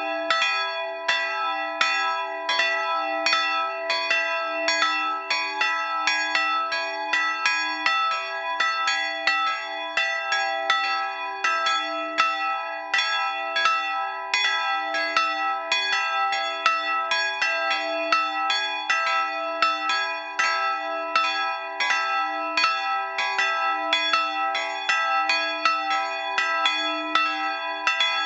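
Two bronze church bells, cast in 1913 by Schilling & Söhne of Apolda and tuned to e'' and g-sharp'', swinging and ringing together. Their strokes overlap in a steady run of about three a second, each tone sustaining into the next.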